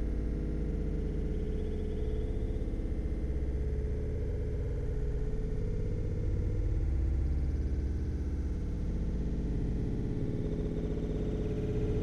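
Steady low synthesizer drone with a held mid-pitched tone, likely ambient background music.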